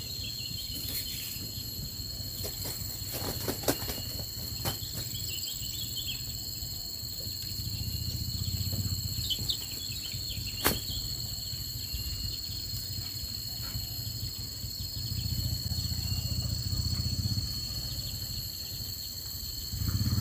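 Steady high buzzing of insects with a few bird chirps and some sharp clicks. A small motorcycle engine drones faintly, swelling twice and growing louder near the end as the bike comes closer.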